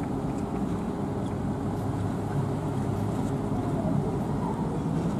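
Steady low rumble of a harbour tug's engines pushing against a cruise ship's bow to berth it.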